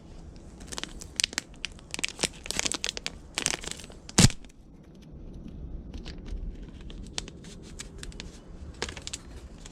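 Packaging of a replacement LCD display being torn and pulled open: a run of crinkling and tearing crackles, with one sharp, loud snap about four seconds in, then quieter handling rustles.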